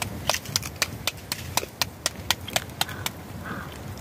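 Roti dough slapped back and forth between bare palms to flatten it by hand, sharp slaps at about four a second.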